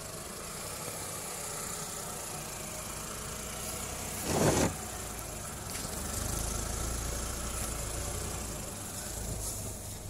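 Ford EcoSport's engine running at low speed as the SUV crawls over sand, its low rumble growing stronger from about six seconds in as the car passes close overhead. A brief louder rush comes about halfway through.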